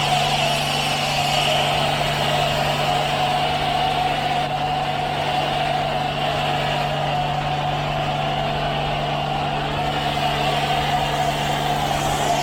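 Steady mechanical running inside an automatic car wash, an engine-like hum with a constant low tone that does not change.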